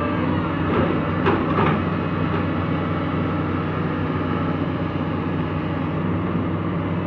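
Heavy diesel engine of a JCB JS200SC excavator running steadily, with two short knocks about a second and a half in.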